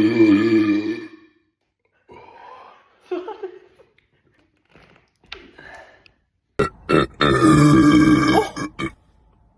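Loud, drawn-out burps from a person who has just gulped down Sprite: one trails off about a second in, and after a few seconds of quieter sounds a second long burp starts about 7 s in and lasts about two seconds.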